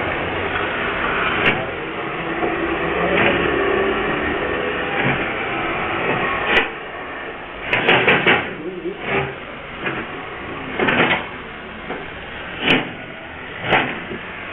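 Steady background hum, then from about six seconds in a string of irregular knocks and thuds, roughly one a second with a quick cluster near the middle, heard through a CCTV camera's narrow-band microphone.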